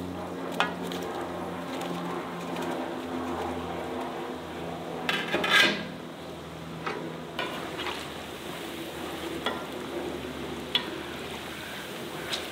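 Battered chicken nuggets sizzling in deep hot oil in a cast-iron pot, with sharp metal clinks of a bowl and spoon against the pot. There is a louder clatter of metal about five seconds in, and a low hum under the sizzle fades out about halfway.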